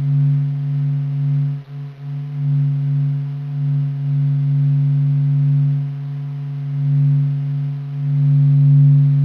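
Sonification of the Sun: data from the Sun turned into sound, heard as a steady, low electronic hum of a few held tones. It swells and dips gently in loudness, with a brief dip about two seconds in.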